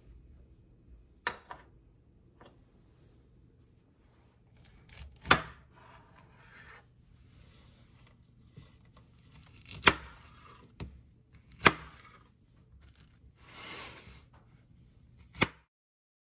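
Chef's knife cutting through peeled pineapple on a plastic cutting board: about five sharp knocks a few seconds apart as the blade goes through and meets the board, with a longer rasping slice shortly before the last knock.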